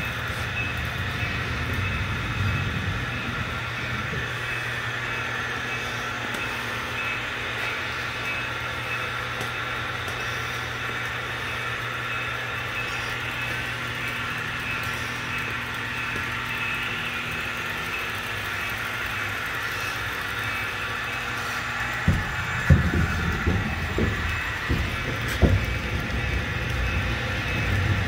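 HO-scale model train running on its layout: a steady whine and rail rumble with a low hum underneath. Irregular low thumps and knocks come in the last few seconds.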